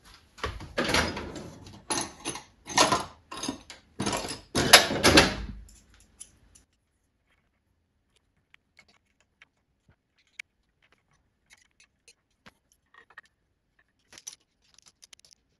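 Red plastic cable drag chain and its small plastic holder being handled and fitted: about six seconds of irregular rattling and clattering, then near quiet with a few light clicks, more of them near the end.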